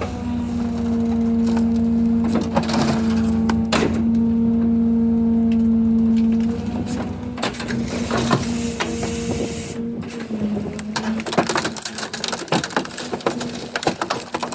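Rear-loader garbage truck compactor running under load, its steady hydraulic hum dropping away about six seconds in, while a microwave oven is crushed: many sharp cracks and crunches of bending metal and breaking glass.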